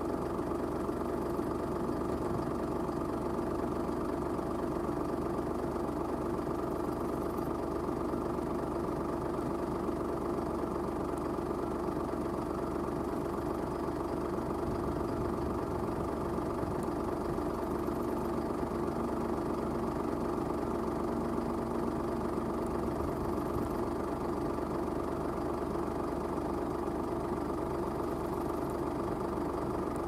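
An engine running steadily at constant speed, a low hum with several even tones that neither rises nor falls.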